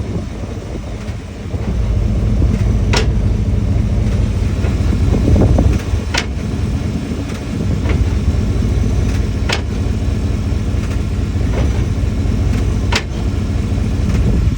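OBS Chevy pickup truck running in gear with a steady low rumble, and a sharp clunk four times at even intervals of about three seconds. This is the clunking noise whose cause is being sought.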